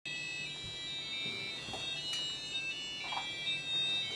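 Several small electronic alarm clocks sounding at once: high-pitched tones that overlap and step in pitch.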